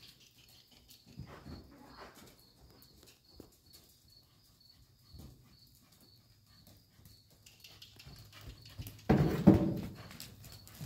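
Horse's hooves thudding softly on arena sand as it is ridden, with a faint high chirping that repeats about four times a second. About nine seconds in comes a much louder, rough rush of noise lasting about a second as the horse passes close.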